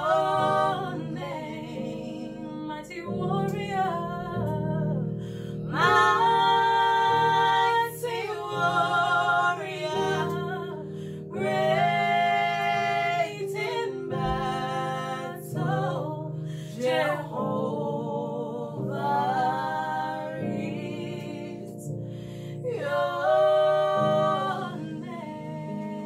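Women singing a slow worship song in long held phrases over sustained electric keyboard chords.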